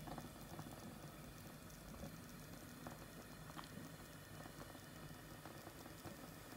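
Faint, soft bubbling with scattered small ticks from liquid heating in an open pressure-cooker pan of fruit, vegetables and meat, over a low steady hum.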